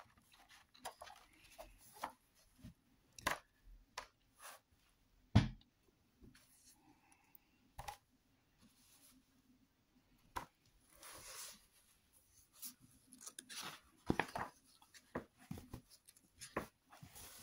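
Pages of a large hardcover illustrated book being turned by hand: soft swishes and rustles of heavy, glossy paper with scattered light taps, and one sharper thump about five seconds in.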